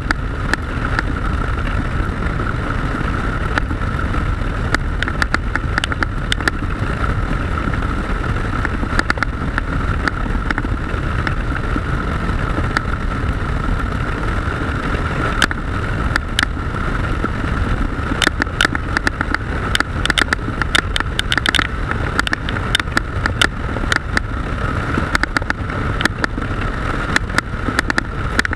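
Motorcycle running steadily on the move, its engine under heavy wind rush on the microphone. Frequent sharp crackling clicks come and go, thickest in the second half.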